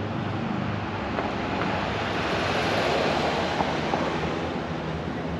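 A car driving past on the road: tyre and engine noise that swells to a peak about three seconds in, then fades.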